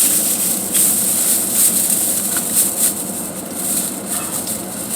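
Rustling and handling of shopping bags and packaged groceries, in irregular short strokes over a steady hiss.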